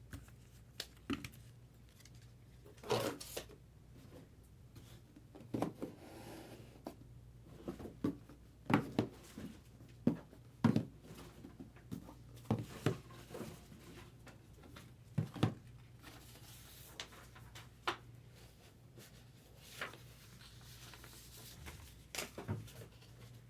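Scattered light clicks, knocks and rustles of trading cards and packaging being handled on a table, irregular and a second or two apart, over a steady low hum.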